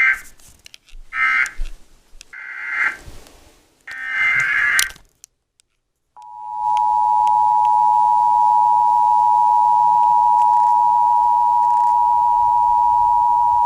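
Emergency Alert System signal: a few short warbling data bursts of the alert header, a brief silence, then the EAS two-tone attention signal, a loud steady dual tone held for about eight seconds before it cuts off. It announces an emergency alert, here a severe thunderstorm warning.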